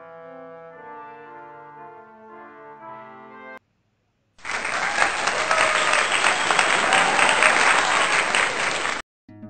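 Soft instrumental background music stops, and after a short silence a loud burst of recorded applause starts about four and a half seconds in, lasting about four and a half seconds before cutting off suddenly.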